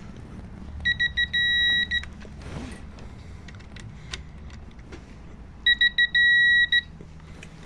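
Digital torque wrench beeping twice over: each time a few quick short beeps, then one long beep. The long beep signals that the connecting rod bolt has reached the set torque of 50 ft-lb.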